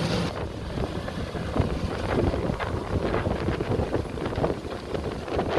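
Wind buffeting the microphone over the low, uneven rumble of a working JCB backhoe loader's diesel engine.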